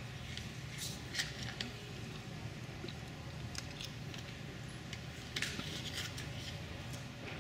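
Ice hockey rink during a stoppage: a steady low hum with scattered sharp clicks and scrapes of sticks and skate blades on the ice, the clearest about a second in and about five and a half seconds in.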